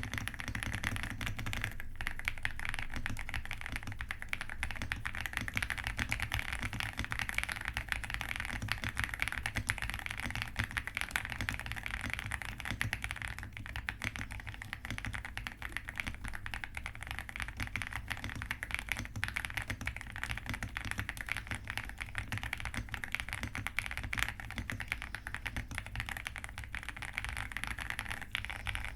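Continuous fast typing on an RK R75 mechanical keyboard fitted with RK Yanyu linear switches, a creamy sound profile, and Cherry-profile double-shot keycaps: a dense, steady stream of keystrokes with no pauses.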